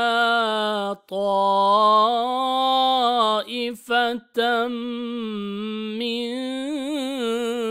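Slow, melodic Quran recitation with tajweed by a single unaccompanied voice. It draws out the end of "yaghsha" and then the word "ta'ifatan" in long held notes that waver gently, with short breaks between syllables.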